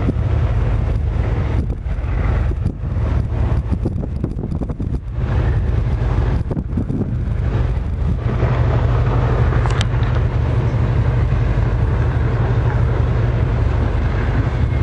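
Steady low hum of a ship's engine running, with wind rushing over the microphone.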